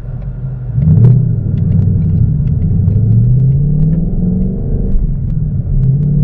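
Ford Mustang GT's 5.0-litre Coyote V8 accelerating, heard from inside the cabin. About a second in it grows louder, then its note climbs steadily for several seconds, falls back, and begins climbing again near the end.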